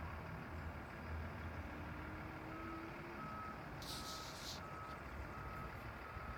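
A vehicle's reversing alarm beeping, one short tone about every 0.7 s, starting about two and a half seconds in, over a low engine rumble. A brief hiss about four seconds in.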